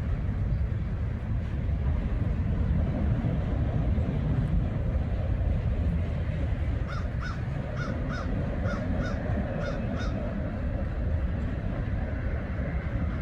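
A steady low rumble, with a bird calling a quick run of about ten harsh notes starting about seven seconds in.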